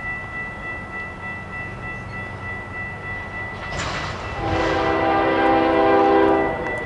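Diesel freight locomotive horn sounding one long blast of about two seconds, a chord of several steady notes, over the low rumble of the approaching train.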